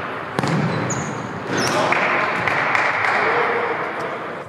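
A futsal ball is kicked hard about half a second in, and the sharp thud echoes in a large sports hall. Short shoe squeaks on the hall floor follow, then a dense rush of noise from about two seconds in, like shouting in the hall.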